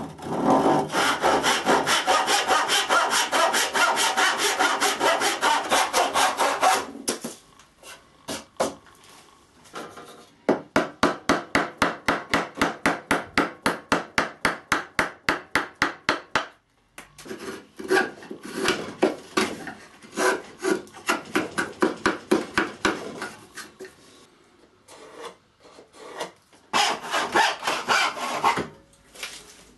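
Hand saws cutting pallet wood. A backsaw saws in quick continuous strokes for about the first seven seconds. In the middle come fast, even scraping strokes on wood, about four a second, as a board edge is shaved, and a handsaw cuts again near the end.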